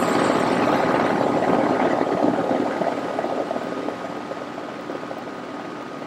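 Rheem single-stage heat pump outdoor unit running: the rush of its top-discharge condenser fan over a steady hum, growing fainter toward the end.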